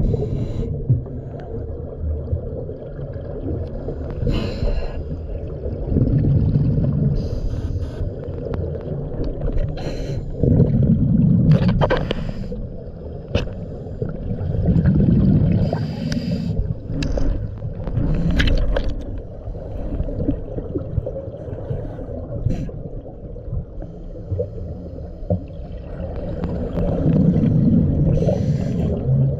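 Scuba diver breathing underwater through a regulator: a short hiss on each inhale and a gurgle of exhaled bubbles, repeating every few seconds.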